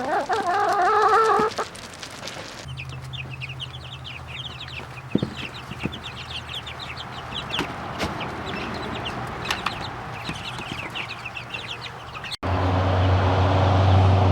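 A chicken's wavering, drawn-out call lasting about a second and a half, then a brood of young meat chicks peeping in many quick, high, falling chirps. A steady low hum takes over abruptly near the end.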